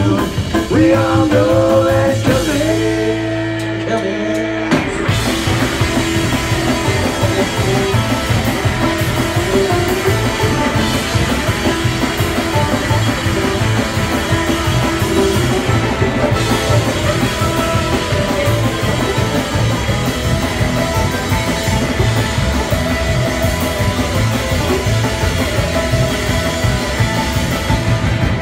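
Live rock band playing loud on drums and hollow-body electric guitar, with a sung line and a long held vocal note in the first few seconds. From about five seconds in the full band plays dense and driving, with a mandolin joining the guitar.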